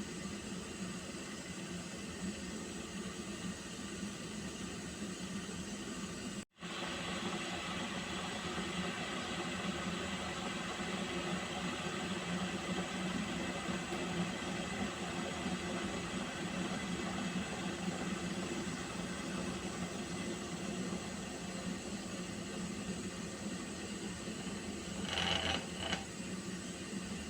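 Water heating in a pot, with the steady hiss and hum of water coming up toward the boil. It cuts out for a split second about six seconds in, and a brief brighter sound rises over it near the end.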